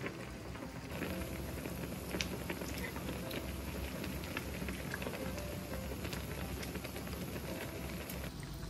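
Shabu-shabu broth bubbling at a boil in the pot, a steady crackling patter with a few light clicks.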